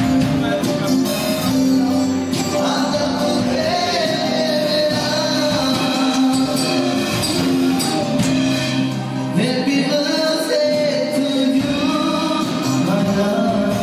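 A live band playing a song with a singer.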